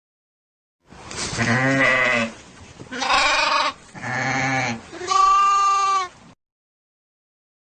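A farm animal bleating: four calls in a row, each about a second long, the last one held on a steady pitch.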